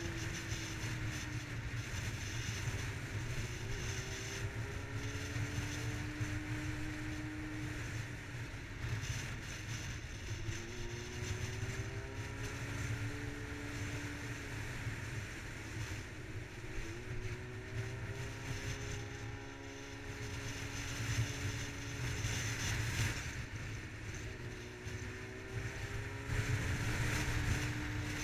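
Yamaha R6 sportbike's inline-four engine under way, its note rising several times and dropping back as the bike speeds up and changes gear, over a steady low wind rumble on the mounted camera's microphone.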